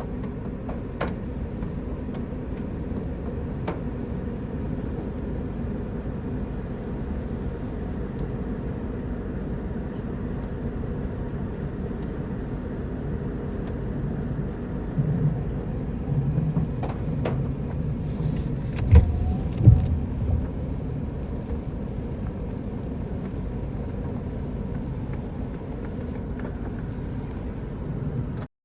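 Steady hum of a car engine idling, heard from inside the car, with a few low knocks about two-thirds of the way through.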